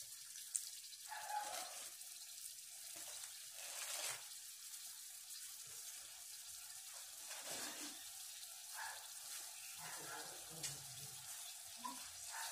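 A pot of chicken curry simmering in a metal kadai on a gas stove: a faint, steady hiss with small bubbling pops. A brief stir with a spoon at the start.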